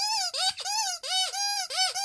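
Rubber squeaky toy squeezed over and over: a quick run of short squeaks, about three a second, each with a brief rise and fall in pitch.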